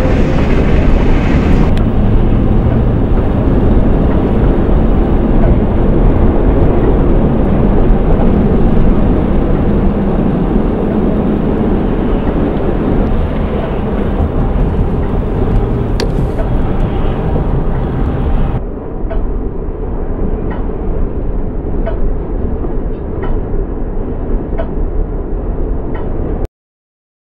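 Steady road and wind rumble of a car driving at highway speed. About two-thirds of the way through the sound turns duller, and it cuts off abruptly near the end.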